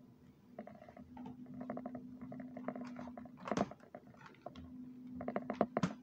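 A Dell laptop being handled on a wooden table: turned over and its lid opened, with light clicks and scrapes and two sharp knocks, about three and a half seconds in and just before the end, over a faint steady hum.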